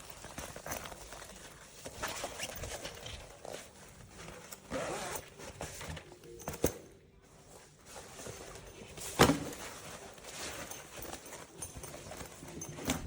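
A packed hardside suitcase being handled and zipped: short zipper runs, rustling and light clicks, with two sharp knocks, the louder one about nine seconds in.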